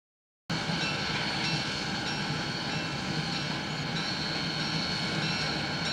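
US Army 2-8-0 steam locomotive No. 610 running at a distance as it turns on a wye: a steady, even train sound with a few faint high tones through it. It cuts in abruptly after about half a second of silence.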